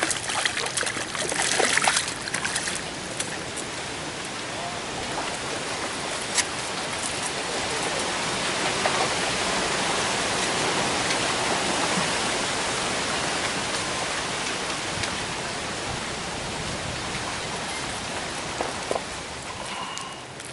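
A trout splashing and thrashing in a landing net at the water's edge for the first few seconds. After that there is a steady rushing noise.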